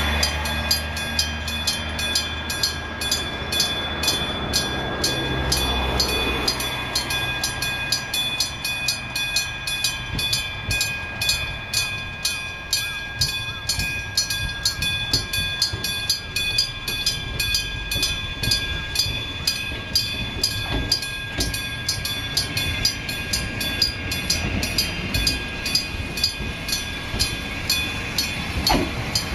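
Electric bell of a Japanese railway level crossing ringing steadily, about two and a half strikes a second. An ex-Tokyu 7700-series electric train runs up to the crossing, its running noise growing near the end.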